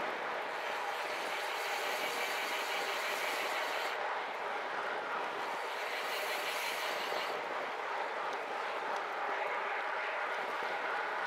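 Rushing wind on the microphone and bicycle tyres rolling on asphalt during a fast downhill ride, a steady noisy rush that turns brighter and hissier twice for a few seconds.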